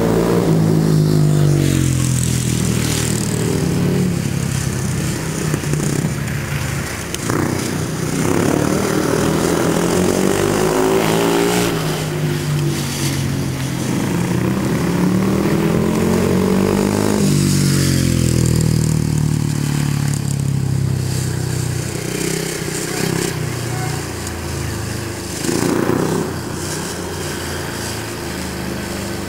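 Speedway motorcycle's single-cylinder engine lapping a shale track, its pitch rising and falling again and again as the throttle opens and closes, with a sharp drop about two thirds of the way through.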